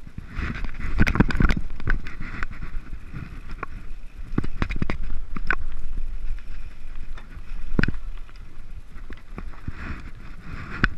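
Mountain bike descending a rough dirt and rock singletrack: a steady rumble of tyres on the trail, with frequent sharp rattles and knocks from the bike as it bounces over rocks and roots.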